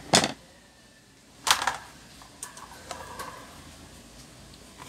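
Knocks and clicks of an electric fan's motor and parts being handled: a sharp knock just after the start, a second knock about a second and a half later, then a few light clicks.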